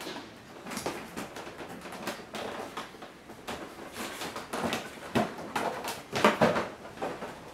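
Hands working a motorcycle's plastic fairing panel loose: scattered clicks, knocks and rubbing of plastic on plastic as it is pulled at its fastenings.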